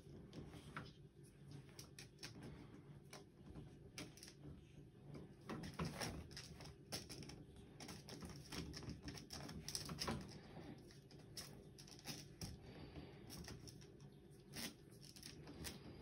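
A ferret tussling with and biting a vacuum cleaner's hose on carpet: faint scuffling with irregular clicks and taps, and a few louder knocks about six and ten seconds in.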